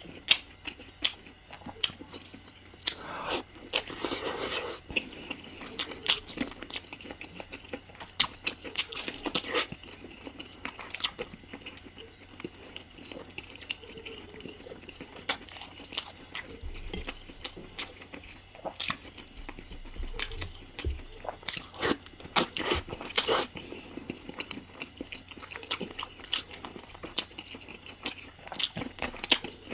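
Close-miked eating of spicy chicken curry: biting and chewing with many sharp clicks and crunches, and a few longer, noisier chewing stretches.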